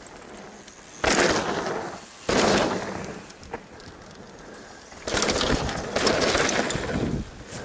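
Downhill mountain bike riding past on a dirt trail: tyres crunching over loose dirt and gravel and the bike rattling. It comes in rushing surges, the loudest for a couple of seconds near the end as a rider passes close.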